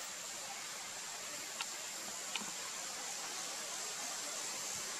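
Steady background hiss with a thin high whine running through it, and two faint clicks under a second apart about a third of the way in.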